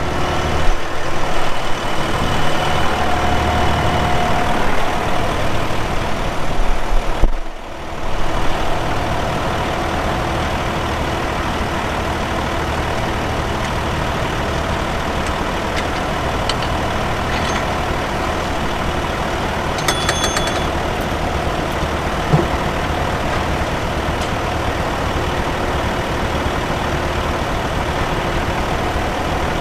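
Flail debarking chipper running at full speed, its engine and spinning flail chains heard from inside the drum. Irregular loud knocks for the first several seconds, typical of the flail chains smacking the camera; after a brief drop about seven seconds in, it settles into a steady running noise.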